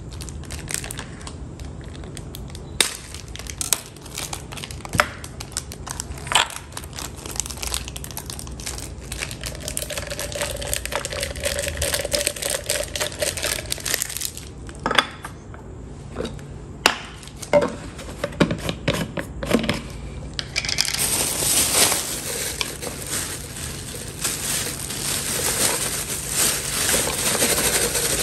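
Clear storage jars being handled and wiped with a tissue, crinkling, with sharp taps and clinks of the containers on the countertop. About three-quarters of the way in, a denser, louder crinkling starts as dry pasta is poured from a plastic bag into a jar.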